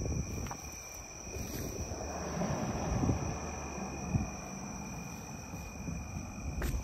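Night insects trilling steadily at two high pitches, with close footsteps and rustling through grass and weeds, loudest about two to four seconds in.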